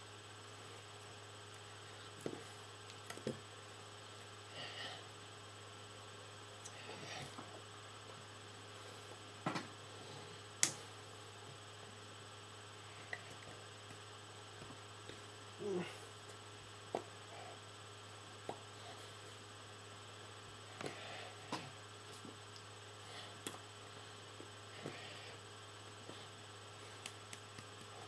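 Steady low electrical hum, with scattered soft taps and clicks from hands striking and brushing together while signing in ASL. The sharpest click comes about ten and a half seconds in.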